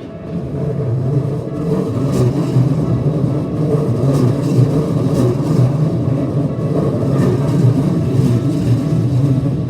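A vehicle passing at close range: a steady low rumble that swells about half a second in and holds, with scattered sharp clicks over it.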